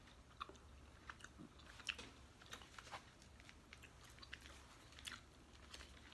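A person chewing a fresh piece of gum close to the microphone: faint, irregular soft clicks and smacks of the mouth, about one or two a second.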